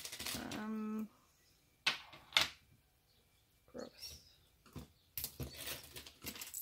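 Metal costume jewelry (bangles and bracelets) clinking and clattering against each other and the tabletop as pieces are picked up and set down, in scattered short clicks with a busier patch of clatter near the end.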